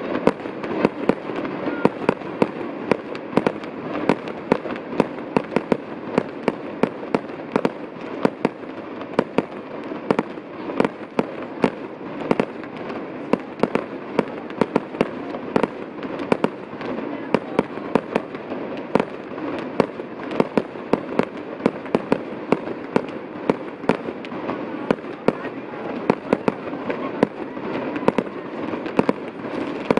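Fireworks display: aerial shells and batteries going off in a dense, irregular string of bangs, several a second, over a continuous hiss from fountains.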